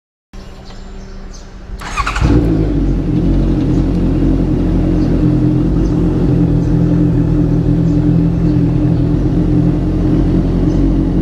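Honda CBR650F's inline-four engine starting up with a short burst about two seconds in, then running steadily at an even speed.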